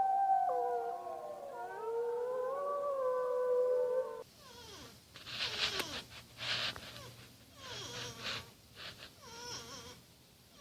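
Several canids howling together in long, overlapping notes that glide up and down. About four seconds in the sound cuts to a run of short, harsh yelps and whines.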